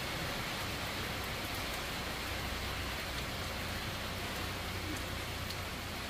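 Steady heavy rain pouring down.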